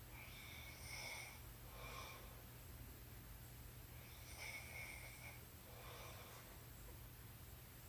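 A sleeping woman snoring softly: faint, slow breaths, about two in-and-out cycles, over a steady low hum.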